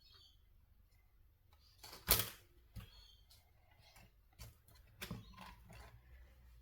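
Cardstock pieces being handled and pressed into place on a scrapbook page on a craft table: light paper rustle with a few small taps, the sharpest about two seconds in.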